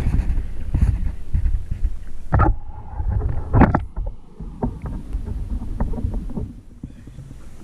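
Irregular knocks and thumps on a kayak, over a low rumble of wind and water on the microphone. The loudest thump comes about three and a half seconds in, followed by a run of small clicks and taps.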